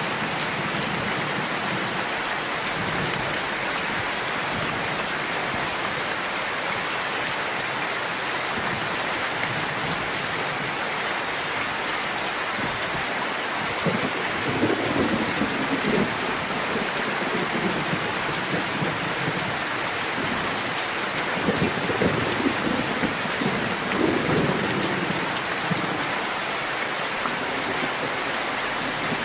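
Steady rain falling. Thunder rumbles twice: once about halfway through and again, longer, about two-thirds of the way in.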